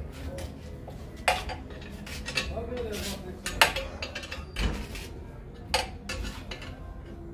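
Steel socket wrench clinking and scraping on the exhaust header nuts of a Yamaha FZ25, a few sharp metallic clinks a second or two apart as the header is unbolted.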